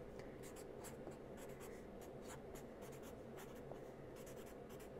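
Black felt-tip permanent marker writing capital letters on a paper card: faint, short scratchy strokes, several a second, over a low steady hum.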